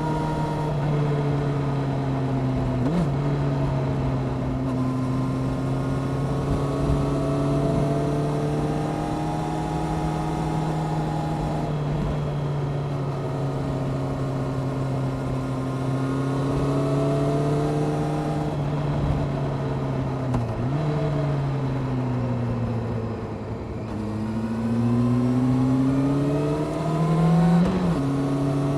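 Honda CBR600F Sport's inline-four engine running through a Delkevic aftermarket exhaust at a steady cruising pitch; the revs fall away about twenty seconds in, then rise again under acceleration near the end.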